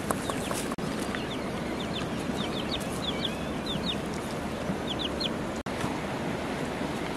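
Chicks peeping: short, high, falling peeps, many in pairs, over steady background noise.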